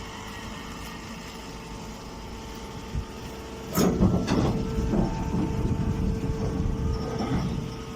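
Chopped straw baler machine running with a steady hum. Just under four seconds in, a loud rattling rumble starts and carries on for about three and a half seconds before easing off.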